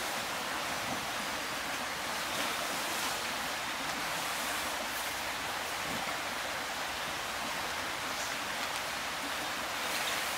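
Steady outdoor rushing hiss, even throughout, with a few faint rustles of hammock fabric being handled.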